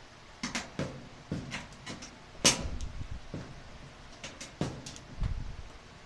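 Irregular clicks and knocks of things being handled against the back of a clothes dryer's sheet-metal cabinet, with one sharper, louder knock about two and a half seconds in.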